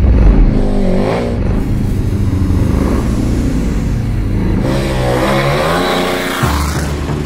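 KTM Super Duke's V-twin engine revving hard under throttle, its pitch sweeping up and back down about a second in and again around five to six seconds in, over a steady low rumble.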